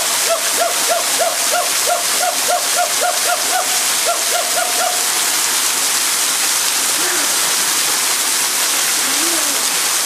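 Waterfall pouring steadily onto rocks. Over it, for about the first five seconds, a berimbau is struck in a quick, even rhythm of short twanging notes, about three a second, then stops.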